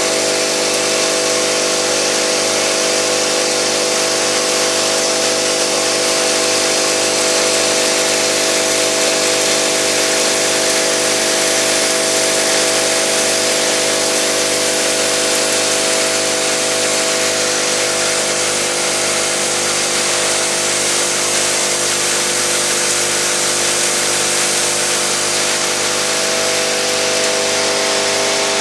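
Vibratory bowl feeder running, a steady buzz with the rattle of small hinge bushings shaking along the bowl.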